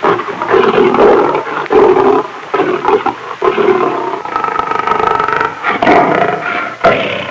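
Lion roaring: a run of loud, short roars in quick succession, then a longer drawn-out roar in the middle of the stretch.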